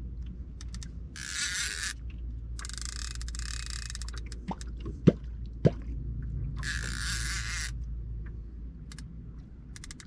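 Catfish kwok (clonk) being worked at the water's surface: three noisy rushing swishes and two sharp, hollow plops about half a second apart a little past the middle, over a steady low hum.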